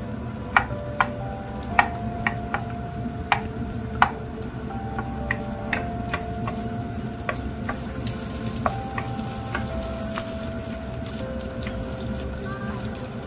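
Food sizzling in a frying pan while being stirred with a metal utensil: irregular clanks against the pan, some leaving a brief ring, most of them in the first half.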